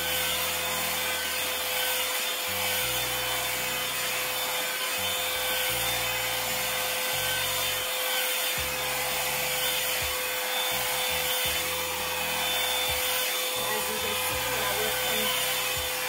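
Revlon One-Step hair dryer brush running on its high setting: a steady blowing hiss with a constant hum, as the brush is pulled through a section of damp hair.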